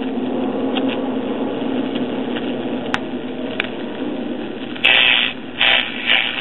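Speaker of a circa 1960 Japanese five-tube AM radio hissing with static while the tuning is turned, a steady low tone under the hiss. About five seconds in, a station starts coming through in louder, choppy bursts, picked up even with the antenna broken.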